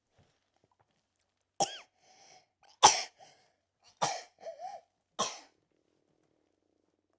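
A baby making short, breathy vocal sounds and little coughs: four quick bursts after a pause of about a second and a half, the loudest about three seconds in.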